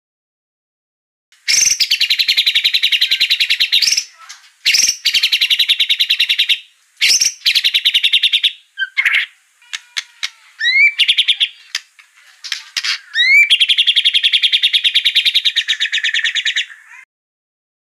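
White-rumped shama (murai batu) singing an agitated song: long, fast rattling phrases, with a few short rising whistles in between about midway. The song starts about a second and a half in.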